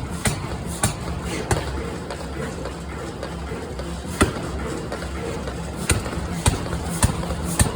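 Forging-shop machinery running with a steady hum, broken by sharp knocks at uneven intervals, with a quieter stretch of a few seconds in the middle.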